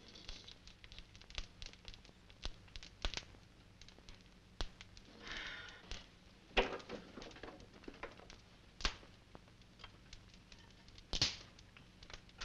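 Quiet film soundtrack with a faint low hum and scattered sharp clicks and pops, typical of crackle on an old optical film soundtrack. There is a brief soft rustle about five seconds in, and the loudest click comes near the end.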